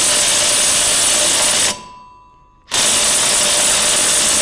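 Cordless impact driver hammering on a 5/8 in socket against the mower's PTO clutch bolt, in two long runs: one stops a little under two seconds in and the next starts about a second later. The bolt does not break loose.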